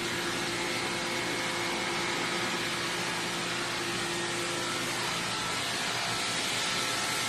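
A machine running steadily, giving a constant even hiss with a faint hum.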